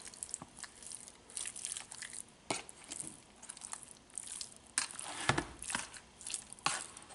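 A metal spoon stirring chopped raw chicken coated in curry seasoning in a plastic container: irregular wet squishes and scrapes, a few to the second.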